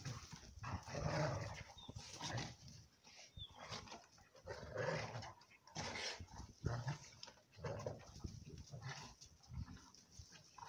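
A wolfhound and a Weimaraner play-fighting: irregular bursts of growls and grunts as the two dogs wrestle.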